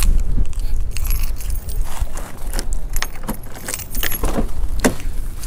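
Irregular metallic jingling and clicking, like a handful of keys being jangled, over a steady low rumble.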